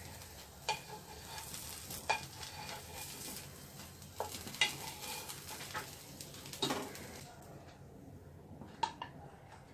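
Spinach dosa batter sizzling on a hot pan, with a spatula scraping and tapping against the pan several times. The sizzle dies away about seven seconds in.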